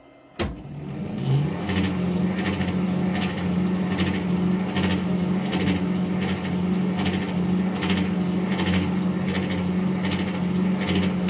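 Warco WM250V lathe switched on with a click, its motor spinning up over about a second and then running steadily with a light ticking that repeats every half second or so, before it is switched off and stops abruptly at the end.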